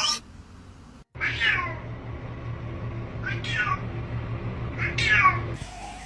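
Domestic cat meowing. There is one call at the start, then a brief break, then three drawn-out meows about a second and a half apart, each falling in pitch, over a steady low hum.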